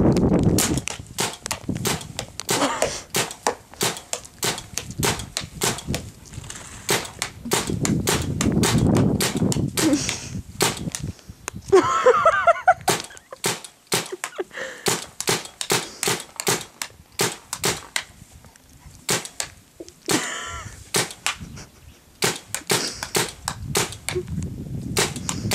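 Paintball marker firing repeatedly: sharp pops, often several a second, in irregular volleys with short gaps between them. Twice a brief, wavering pitched call rises among the shots.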